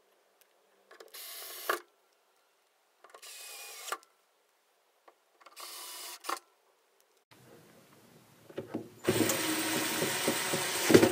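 Bosch cordless drill/driver driving the mounting screws of an LED display module: three short runs of about a second each, each ending sharply as the screw seats, then a longer, louder run over the last two seconds.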